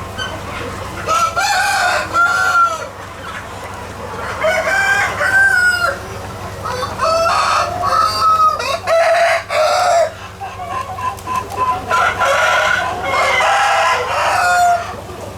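Roosters crowing again and again, one long rising-and-falling crow after another, some overlapping, as if from several birds at once.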